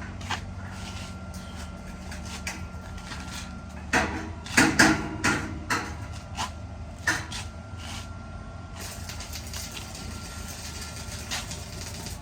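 Scattered clanks and knocks of steel parts being handled, a quick cluster of them about four seconds in, over a steady low machine hum.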